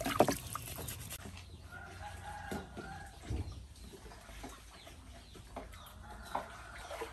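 Chickens clucking in the background, with a few faint knocks.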